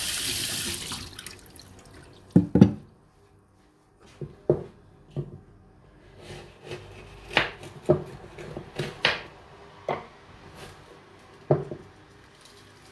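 Kitchen tap running into the sink, shutting off about a second in, then scattered knocks and clicks of kitchen handling, the loudest a double knock about two and a half seconds in.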